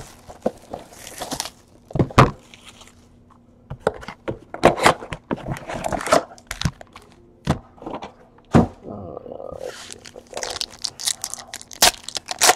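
Plastic shrink-wrap crinkling as it is torn off a sealed trading-card box. Then foil-wrapped card packs are pulled from the cardboard box and stacked on a table, in a string of sharp taps, clicks and crackly rustles.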